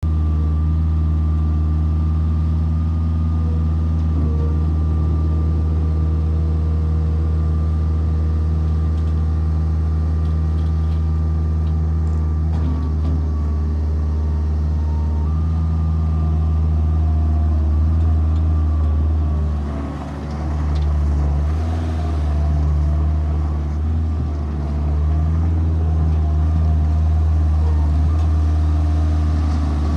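Bobcat 743 skid steer engine running steadily, with the engine note dipping briefly about two-thirds of the way through and again shortly after.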